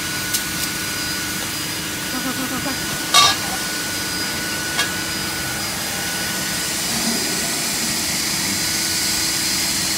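Multi-spindle profile drilling machine running with a steady mechanical hum and whine, broken by a few sharp metallic clicks, the loudest about three seconds in. A high hiss grows louder in the last few seconds.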